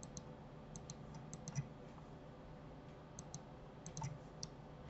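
Faint clicking of a computer mouse and keyboard: about a dozen light clicks, mostly in quick pairs, with a pause of about a second and a half in the middle.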